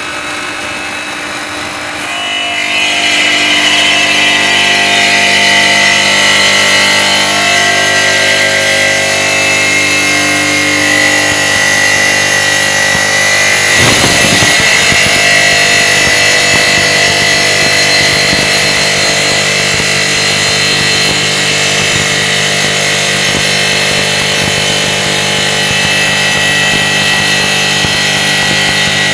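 5-axis CNC stone cutting machine running, its saw blade cutting stone with a steady high-pitched whine. It grows louder about two seconds in.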